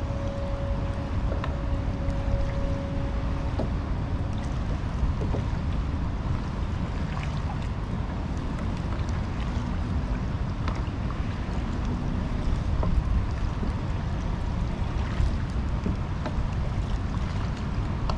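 Steady low rumble of wind on the microphone, with small waves slapping against the kayak's hull.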